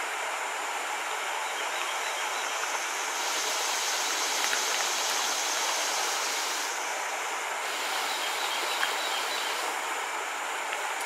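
Water rushing over a rocky riffle in a bayou, a steady even rush. A high-pitched buzz rises over it twice for a few seconds.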